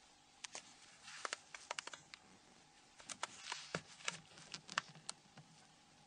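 Faint, scattered small plastic clicks and rubbing as gloved fingers press a new keypad bezel down onto the rubber key mat of a Nokia N93 phone, with a couple of brief scraping passes.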